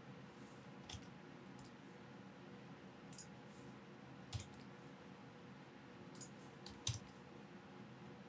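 A few faint, scattered clicks of a computer mouse and keyboard over quiet room tone, about six or seven in all.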